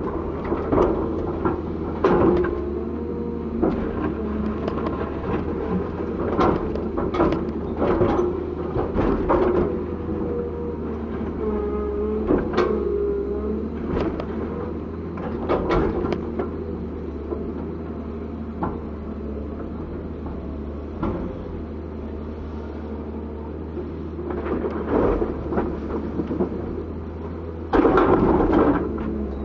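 Komatsu PC200-7 excavator working: a steady diesel engine drone under repeated knocks and clanks, with short whining tones now and then and a louder burst near the end.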